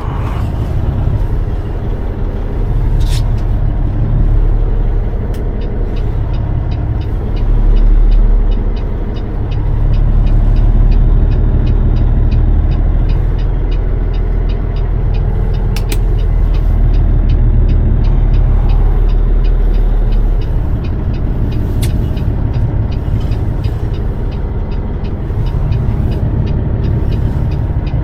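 Peterbilt 389 semi tractor's diesel engine running as the truck moves, its low rumble swelling from about 8 to 20 seconds in, with a steady light ticking alongside.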